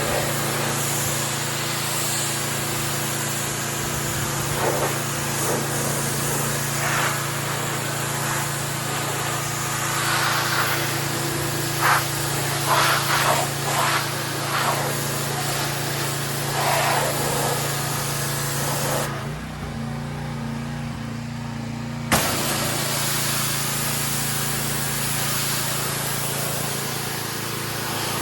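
Gas-engine pressure washer running steadily while its water jet hisses and spatters against a truck. About two-thirds of the way through, the spray stops for some three seconds and the engine note shifts, then the spray starts again with a sharp click.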